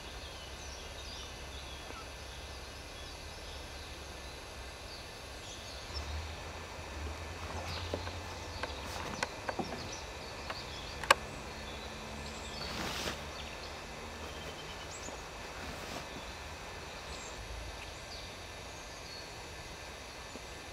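Woodland ambience with a stationary stump grinder not running: scattered faint bird chirps over a steady low rumble, with a few small clicks in the middle, one sharper than the rest, and a short swell of hiss a little after.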